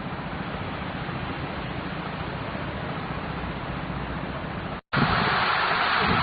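Steady rushing noise with no distinct events. About five seconds in it breaks off for an instant and comes back louder and brighter.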